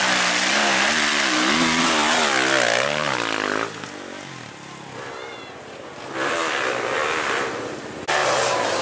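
Dirt bike engine revving hard on a steep climb, its pitch wavering rapidly up and down as the throttle is worked. It drops away about three and a half seconds in, then comes back loud at around six seconds.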